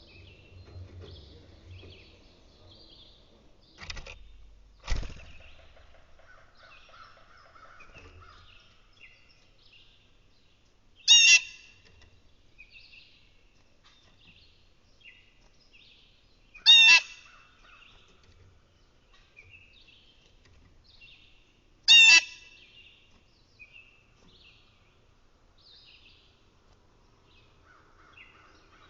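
Small birds chirping and twittering throughout, with a loud harsh call three times at about five-second intervals. Two dull thumps land about four and five seconds in.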